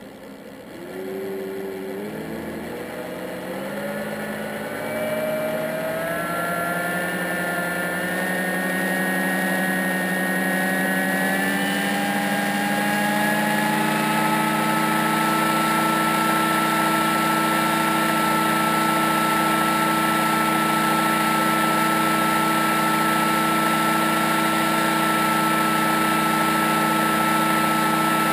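Tidalforce S-750 electric front hub motor spinning up unloaded, with no rim fitted, in turbo mode. Its whine rises in pitch over the first dozen seconds or so, then holds steady at top speed of about 830 RPM.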